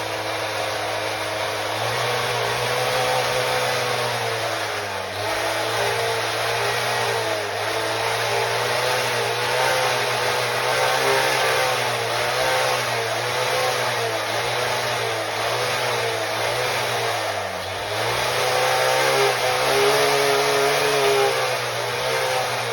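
Partner K750 concrete saw's two-stroke engine running on its new carburettor, its speed wavering up and down and dipping briefly a couple of times before picking back up.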